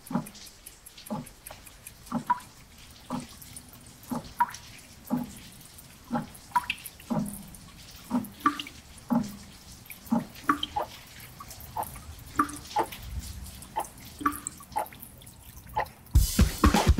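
Water drops plinking one at a time, roughly one every half second to a second. Music comes in loudly about a second before the end.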